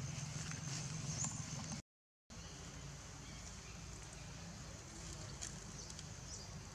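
Outdoor ambience: a steady low rumble under a steady high hiss, with a few faint clicks and short chirps. The sound drops out completely for a moment about two seconds in, where the video is cut.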